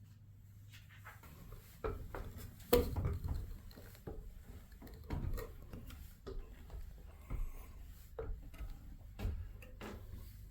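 Irregular knocks and thumps on wood with some rubbing, the loudest a sharp knock about three seconds in, over a low steady hum.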